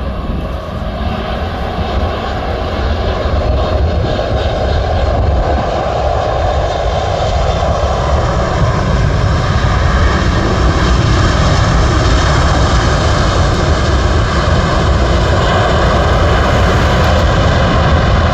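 Boeing 747 freighter's four jet engines during landing and rollout on a wet runway: a loud, steady rumble that builds over the first few seconds and then holds.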